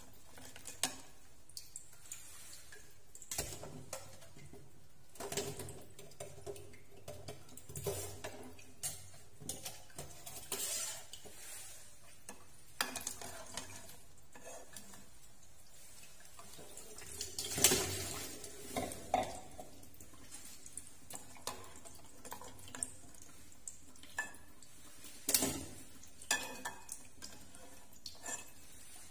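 Metal ladle clinking and scraping against a pot as boiled quail eggs are scooped out of the water, in irregular knocks, the loudest a little past halfway.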